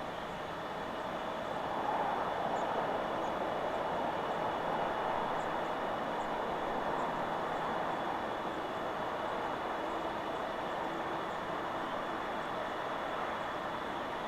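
Wind blowing steadily through forest trees, a continuous rushing that swells a little about two seconds in.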